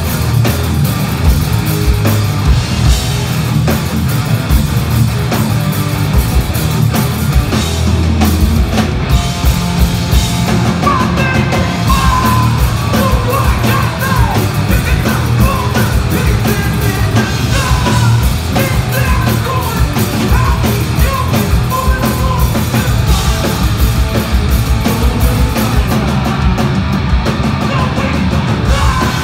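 Live punk rock band playing loud, with distorted electric guitars, bass and a pounding drum kit. A shouted lead vocal comes in about ten seconds in and carries on over the band.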